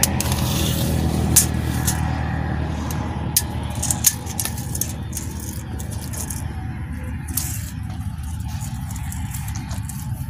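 A steady low engine hum that slowly fades, with scattered clicks and rustles from the camera being handled among the bean plants.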